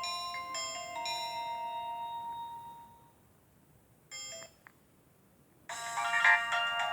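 Nokia 105 (RM-908) built-in ringtones: a chiming, mallet-like melody of clear tones ends and fades out about three seconds in. After a pause a brief snatch of tones sounds, then a louder, busier ringtone melody starts near the end.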